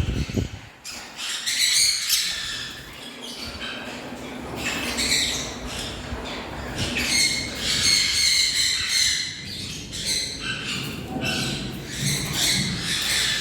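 A flock of caged farm birds calling all at once, a continuous overlapping chatter of chirps and squawks. There is a low thump right at the start.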